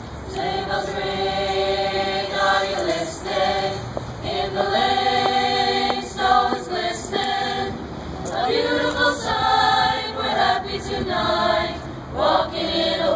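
Mixed-voice chamber choir singing a Christmas carol a cappella, holding chords in phrases with short breaks between them.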